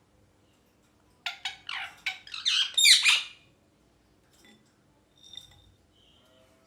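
Pet ringneck parakeet giving a rapid run of squawking calls, each a quick downward sweep, building to the loudest about three seconds in, followed by a couple of faint short chirps.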